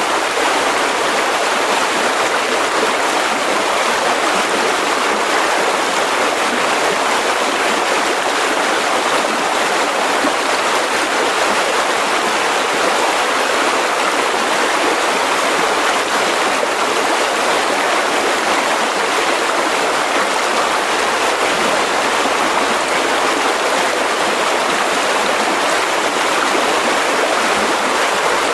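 Mountain river rushing steadily over rocks, a constant loud water noise.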